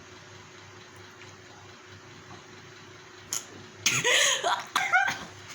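Low room hiss for about three seconds, then a click, and near the end a woman's sudden noisy burst of breath followed by short strained vocal sounds as a nasal swab is pushed deep into her nostril.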